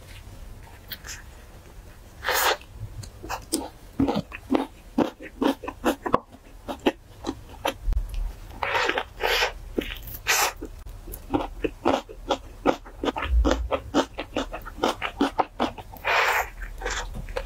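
Close-miked eating: crisp bites and crunching with wet chewing, a rapid string of short crackles broken by a few louder crunches.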